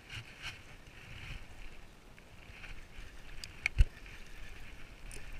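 Spinning reel being cranked, a faint uneven whirr with small clicks, and a sharp knock of rod handling a little under 4 seconds in.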